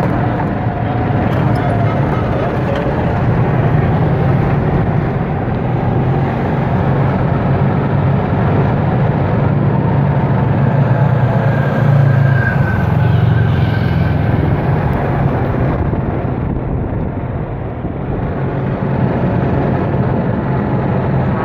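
Golf cart driving along airfield pavement: a steady low drone from the cart and its tyres, a little louder around the middle and easing briefly a few seconds before the end.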